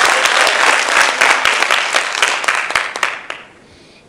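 Audience applauding, many hands clapping together, the applause dying away about three seconds in.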